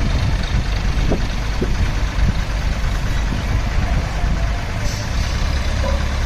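Heavy truck or crane diesel engine idling with a deep, steady rumble, with a few short knocks in the first two seconds and a brief hiss about five seconds in.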